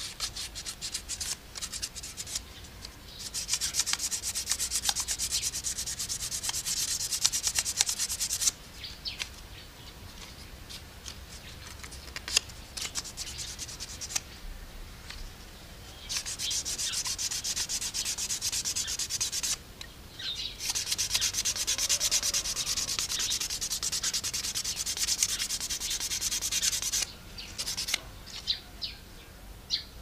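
Hand-sanding a wooden slingshot fork with a small piece of sandpaper: rapid rubbing strokes in three long runs, separated by quieter pauses with a few light clicks.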